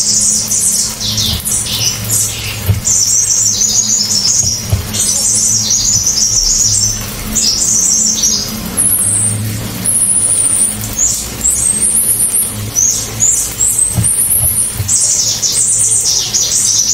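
Cililin songbird singing its loud, sharp, clear 'tembakan' song: a string of short, very high, rapidly trilled phrases, one after another with brief gaps. A low steady hum runs underneath.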